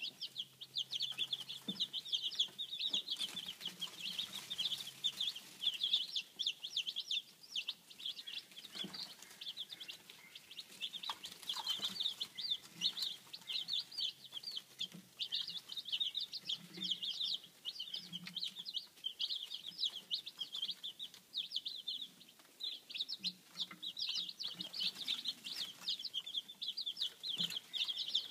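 A group of young chickens from a 4-H chick chain peeping continuously, many short high cheeps overlapping.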